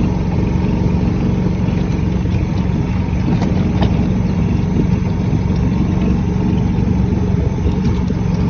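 A vehicle's engine runs at a steady speed while it drives over rough grass, with a few faint knocks and rattles.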